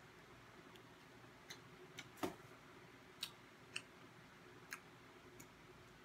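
Faint chewing of a crispy fried chicken wing: scattered soft crunches and mouth clicks, about seven in all, the loudest a little past two seconds in.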